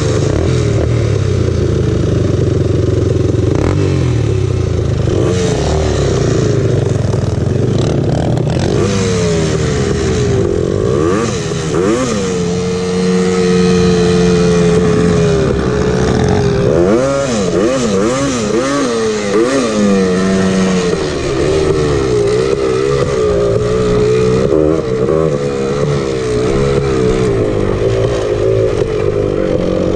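Honda TRX250R's single-cylinder two-stroke engine revving as the ATV is ridden, its pitch rising and falling with throttle and gear changes. Around the middle it holds one high note for a few seconds, then several quick up-and-down blips of the throttle follow.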